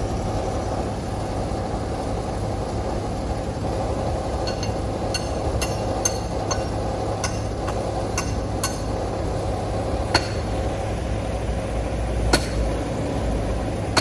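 Diesel engine idling steadily as a dump truck tips a load of sand with its bed raised. From about four seconds in, a string of short, sharp metallic knocks, irregularly spaced, one or two a second at first and fewer near the end.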